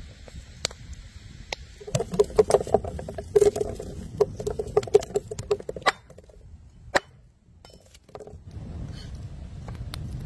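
A curved chopping knife striking a wooden board in a rapid run of chops, about four or five a second, with each knock ringing a little. Two single knocks follow, then the low, steady crackle of a wood fire.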